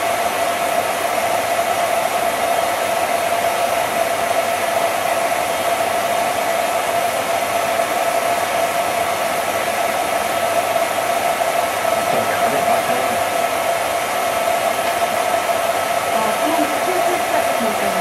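Cine film projector running: a steady motor-and-fan whirr with a constant hum tone.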